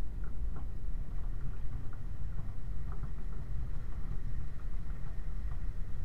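Uneven low rumble of a Land Rover 90 driving slowly along a flooded, stony track, picked up by a camera mounted on its rear, with faint splashing and small knocks from the water and stones.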